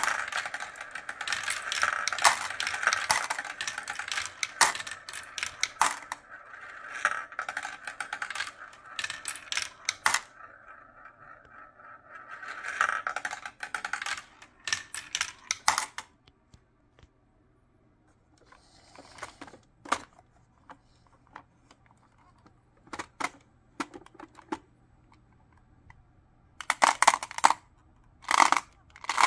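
Glass marbles rolling and clattering down a plastic marble run's tubes, funnel and bends: a dense, continuous clicking rattle for about the first half, thinning after about sixteen seconds to scattered single clicks as the last marbles drop. Near the end, short bursts of marbles clacking together in the toy garbage truck's plastic bin.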